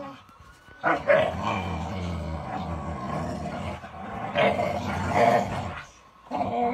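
Two dogs growling and barking in play as they pull on a rope between them. The sounds come in loud bursts, starting sharply about a second in, with a short pause near the end.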